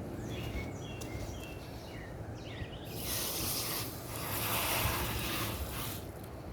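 Small birds chirping in short falling notes, then a steady hiss lasting about three seconds, starting around the middle.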